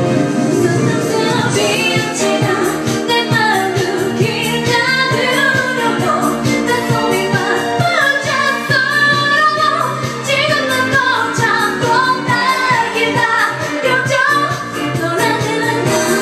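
A woman singing a K-pop song over its pop backing track, with a steady beat.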